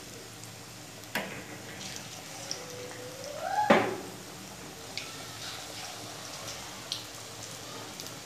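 Vegetable pakoras deep-frying in hot oil: a steady sizzle with scattered crackles. Two knocks, the louder about three and a half seconds in, just after a short rising tone.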